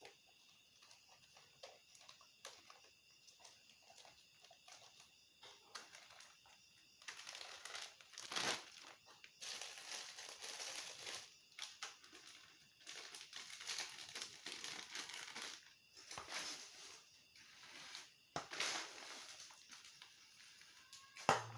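Plastic being handled and crumpled. It starts as light scattered crackles and becomes louder irregular rustling and crinkling from about seven seconds in.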